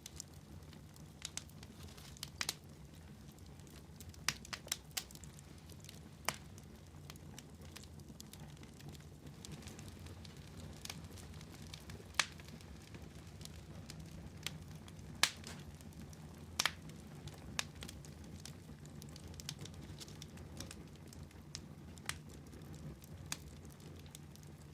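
Fire crackling in a fireplace: irregular sharp pops and snaps over a low, steady rumble.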